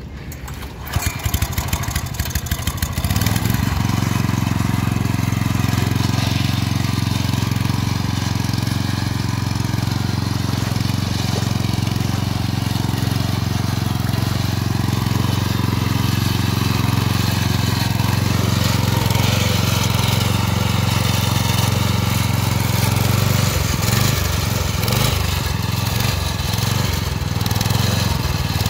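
Small Honda engine driving a boat's propeller through a chain and gearbox, starting about a second in with uneven firing, then settling into a steady run. Its note wavers near the end.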